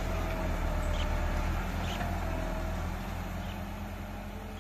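Tractor engine running steadily while a tractor-mounted backhoe digs sand, fading out near the end.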